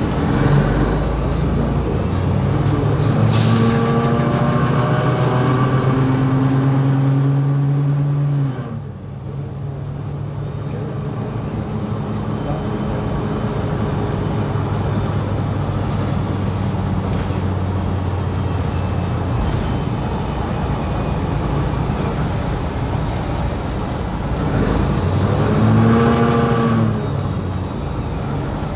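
New Flyer XD60 articulated bus's engine and drivetrain heard from on board, rising in pitch as the bus accelerates, with a short air hiss about three seconds in. The pitch drops suddenly about eight seconds in, the bus runs steadily, then the tone climbs and falls again near the end.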